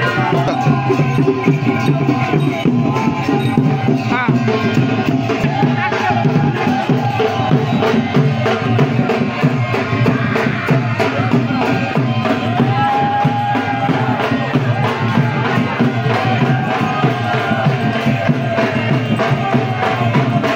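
Loud live folk music: drums and percussion keeping a steady, dense rhythm, with a wavering melody line above them.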